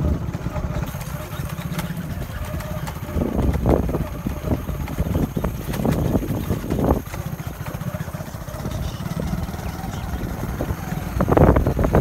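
A small engine running steadily at low revs, with a few louder surges of rumbling noise.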